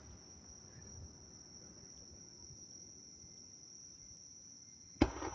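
Insects chirring in a steady, continuous high buzz, then a single firework shell bursting with a sharp bang near the end.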